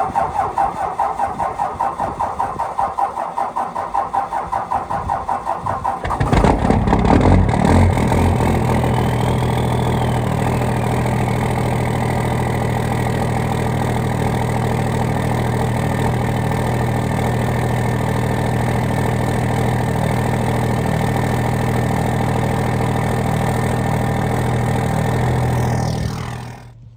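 A 24-valve Cummins 5.9 inline-six diesel with a straight-piped exhaust cranking over on a cold start, the starter turning it with a fast even pulse for about six seconds before it catches. It fires up loud, then settles into a steady idle; the long crank marks a hard cold start. The sound drops away shortly before the end.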